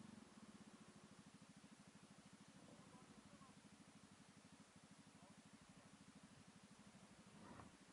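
Suzuki Address 110 scooter's single-cylinder engine idling faintly with a fast, even pulse.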